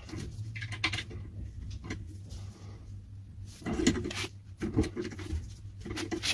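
Metal clicking and scraping from a padlock as a tool is worked back and forth in its cylinder to force it open, in several short bursts, over a steady low hum.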